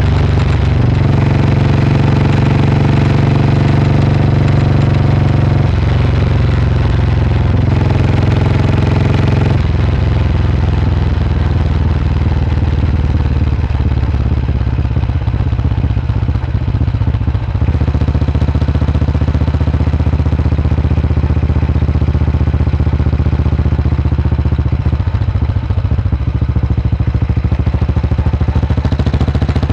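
Vintage single-cylinder motorcycle engine running under way, loud and continuous. Its note shifts to a new pitch several times, with throttle or gear changes.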